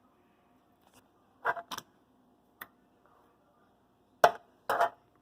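A few short knocks and clatters of kitchen items being handled and set down: two about a second and a half in, a light tick a second later, then two louder knocks near the end.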